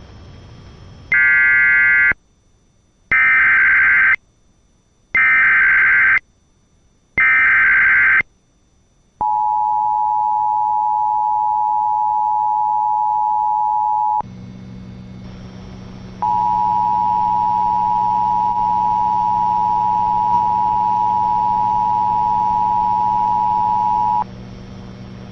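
Emergency Alert System activation: four one-second bursts of screeching SAME digital header data, then the EAS two-tone attention signal, a steady high dual tone that runs about five seconds, breaks off for about two seconds, and resumes for about eight more.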